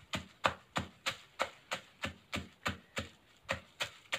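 Wooden pestle pounding toasted dried chillies in a mortar into chilli flakes: a steady rhythm of dull knocks, about three a second.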